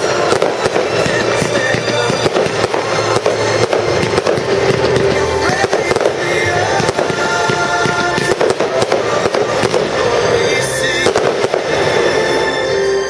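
Aerial firework shells bursting in a dense barrage, many bangs in quick succession, over loud music.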